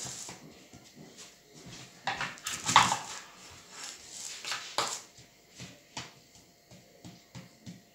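Soft rustling and squishing of a hand mixing buttered millet and raisins in a plastic bowl, cut across about two and a half seconds in by a short high whine, the loudest sound, and a briefer one near five seconds.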